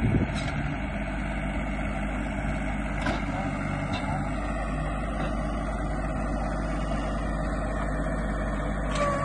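Compact tractor engine running steadily as it tows a grass seeder across bare soil, with a few light clicks from the machinery.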